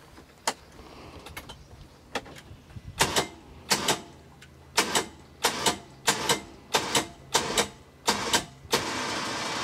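Electric winch on a side-by-side UTV bumped in short paired bursts roughly every half second, paying out cable under the weight of a rooftop tent, then running steadily for about a second and a half near the end.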